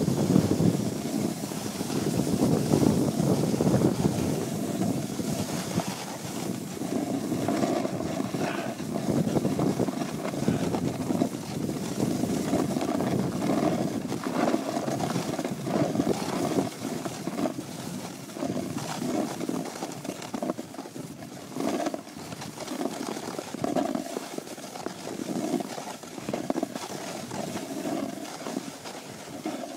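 Wind rushing over the microphone and the hiss and scrape of sliding down a packed, groomed snow run, with small knocks along the way, growing gradually quieter toward the end.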